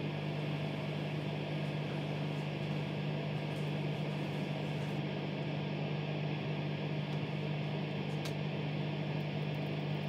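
A steady low electrical-sounding hum under an even hiss of static, with a faint click about eight seconds in.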